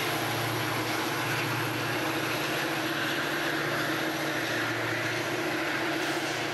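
Diesel locomotive engine of a Metra commuter train running steadily, under the hiss of heavy rain.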